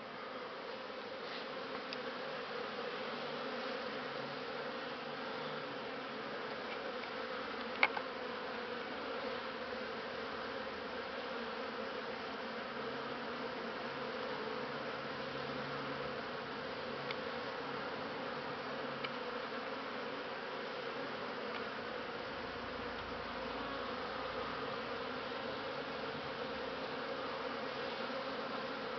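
Swarm of honeybees flying around a hive entrance, a steady, dense buzz. A single sharp click about eight seconds in.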